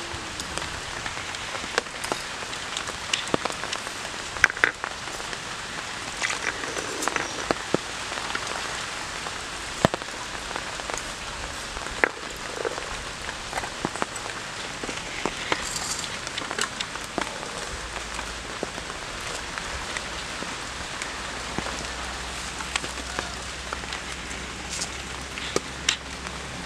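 Steady patter of water with scattered small clicks and taps.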